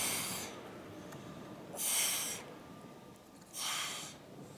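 A woman exhaling forcefully in time with her crunches: three short, hissing breaths about two seconds apart, the effortful breathing of a hard abdominal set.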